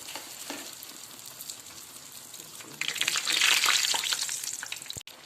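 Sfenj dough frying in hot oil in a frying pan, with a steady sizzle. About three seconds in the sizzling grows much louder, then eases off again.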